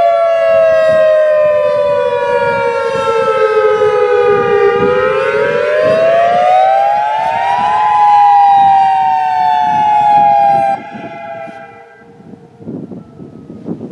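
Federal Signal EOWS 612 electronic outdoor warning siren sounding its wail: the pitch falls, rises and falls again, then the tone cuts off abruptly a little before eleven seconds in, leaving wind noise on the microphone.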